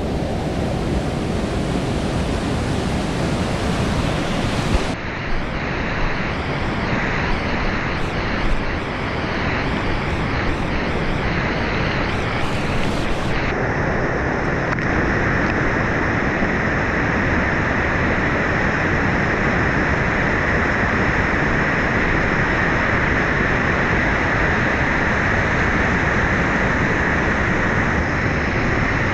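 Whitewater of a steep mountain creek rushing over boulders and a small waterfall, a loud steady rush of water. Its tone changes abruptly twice, about five and thirteen seconds in.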